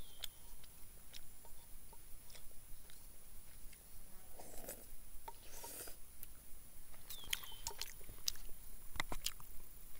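A person chewing a mouthful of rehydrated spaghetti, with scattered small clicks and scrapes of a hand-carved wooden fork against a stainless steel camp cup.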